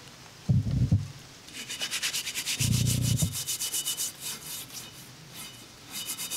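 A stainless steel scrubbing pad rubs back and forth over a rusty cast iron Dutch oven lid wet with cleaning vinegar. The scratchy scrubbing runs at about six strokes a second, eases off for a moment past the middle, then starts again near the end. Two short, low thumps come, about half a second in and again near three seconds.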